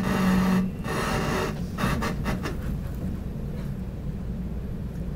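Subway train cabin noise on Seoul Metro Line 1: a steady low rumble from the running train. A short low hum sounds in the first second or so, with some rustling and scraping in the first two seconds.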